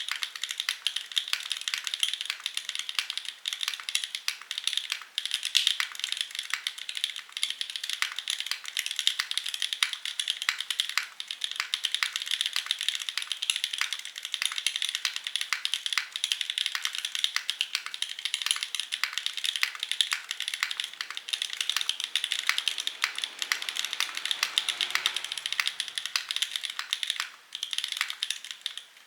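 Continuous fast typing on a Mode Envoy mechanical keyboard with stock Mode Obscura linear switches on an aluminium plate and GMK keycaps: a dense stream of key clacks with a brief pause near the end.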